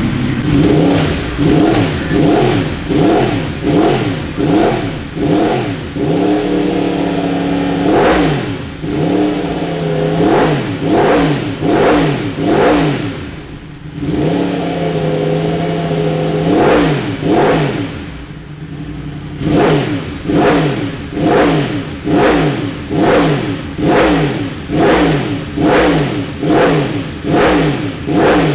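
2015 Yamaha YZF-R1's crossplane inline-four, breathing through an Arrow Competition 3/4 exhaust with direct piping and a Race-Tech titanium silencer in place of the stock catalyst box and muffler, revved in neutral in quick repeated throttle blips. The note rises and falls about once every three-quarters of a second, with a couple of longer holds and two brief drops back toward idle.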